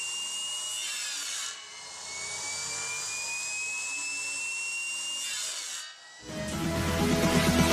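775 DC motor spinning a small circular saw blade, a steady high whine. Twice it drops in pitch and level, as a motor does when the blade bogs down in a cut, and it slowly winds back up in between. About six seconds in, loud electronic music fades in.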